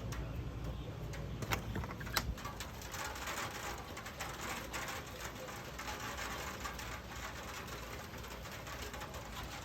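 Thunderstorm rain starting to patter densely on a hard surface about three seconds in, after two sharp ticks, over a low steady rumble of wind. The person filming takes the hits for possible hail.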